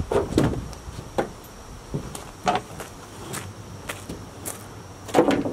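Footsteps crunching on loose gravel, one short crunch every half second to second, with a louder crunch near the end.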